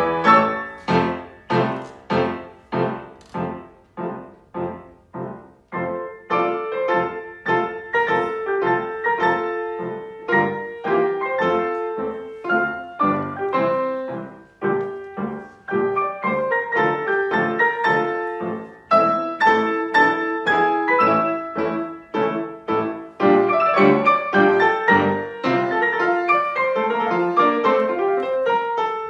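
Six-hands piano: three pianists playing one grand piano together. It opens with separate struck chords, each dying away, and turns to fuller, busier playing about six seconds in.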